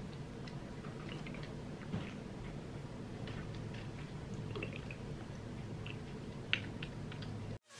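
Faint squishing and dripping as liquid dye is squirted from a plastic squeeze bottle onto a scrunched, rubber-banded cotton T-shirt, with scattered small clicks. It cuts off suddenly near the end.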